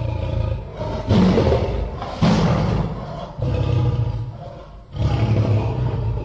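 Lion roaring: a run of about five deep roars, one after another, each one to one and a half seconds long.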